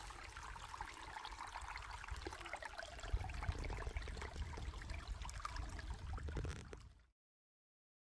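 Shallow spring-fed stream trickling faintly over stones, with a low rumble joining about three seconds in. The sound cuts off suddenly about seven seconds in.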